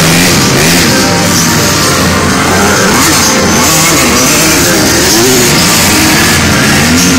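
Rock music mixed with dirt-bike engines revving up and down.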